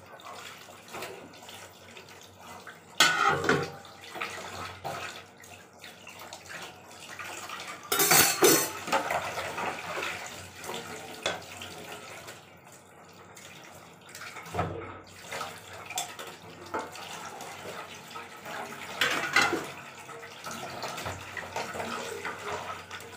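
Steel plates being hand-washed under a running tap: water splashing while the plates are scrubbed, with metal dishes clinking and a few louder clatters about three, eight and nineteen seconds in.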